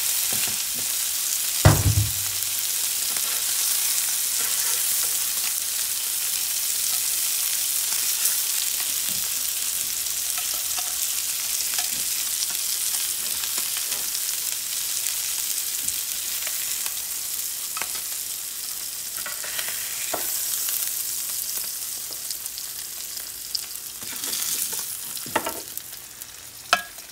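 Beef burger patties, onions and mushrooms sizzling on a flat stovetop griddle: a steady hiss, with a few sharp knocks and scrapes from a spatula as patties are lifted off. The sizzle gets quieter near the end as the griddle empties.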